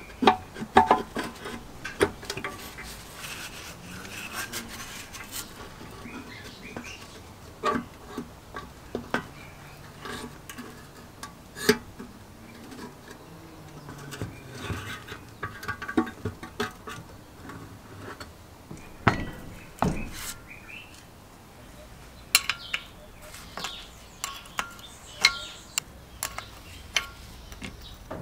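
Irregular metal clinks, knocks and scrapes as a 1974 Briggs & Stratton 3 HP engine is handled and turned over by hand, with a wrench working on its carburetor bolts near the end.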